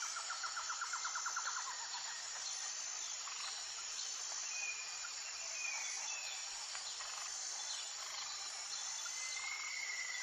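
Wild nature ambience: a steady, high-pitched chorus of insects such as crickets, with a rapid trill in the first second and a half and a few short whistled bird calls, one longer call near the end.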